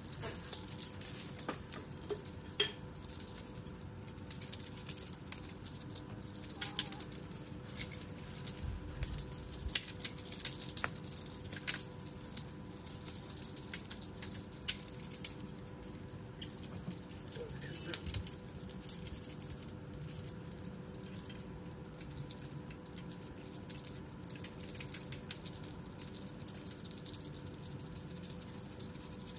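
Kittens scampering and pouncing on dry dirt and leaves: scattered light scuffs, rustles and clicks, over a faint steady hum.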